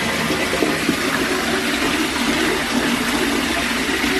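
Bathtub tap running steadily, a stream of water splashing into the tub.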